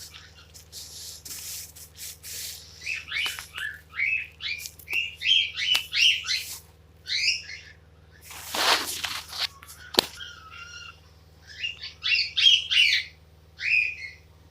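Female cockatiel chirping: runs of short, quick calls, a first run through the middle and a second near the end. Between them comes a brief rustling noise and one sharp click.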